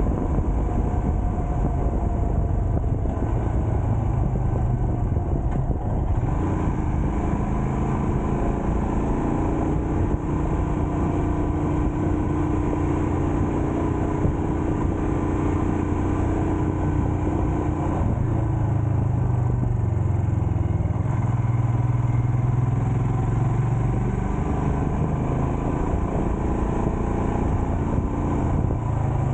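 A road vehicle on the move: a steady engine hum and road noise, with the engine note shifting up and down as the speed changes.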